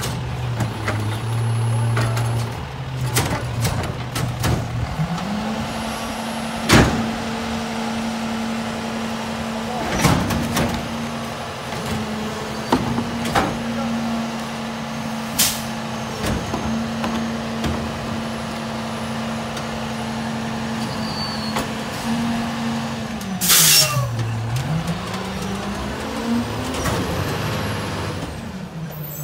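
Autocar WXLL garbage truck's engine stepping up from idle to a raised, steady speed about five seconds in while the McNeilus rear loader's packer runs, with knocks and bangs of trash going into the hopper. Near the end an air brake releases with a short hiss, the engine drops back, then revs up as the truck pulls away.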